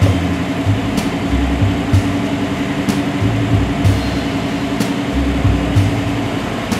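The electric roof mechanism of a 1957 Ford Fairlane 500 retractable hardtop runs steadily as the roof lifts and folds back, making a constant motor hum with a light tick about once a second.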